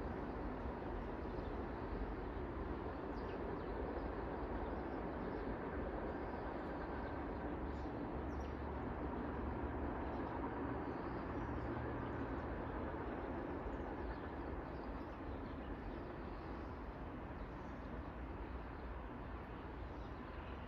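Steady outdoor ambience: a continuous low rumble that swells a little in the middle, with faint scattered bird chirps.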